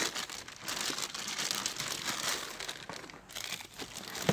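Plastic packaging crinkling and rustling, with small irregular crackles, as a new welding machine is unpacked and handled.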